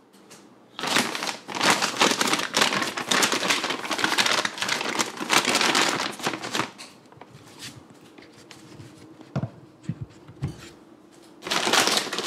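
Plastic cat-food bag crinkling as it is handled and its top folded over, in two spells: a long one starting just under a second in and another near the end. A few light knocks fall in the quieter stretch between.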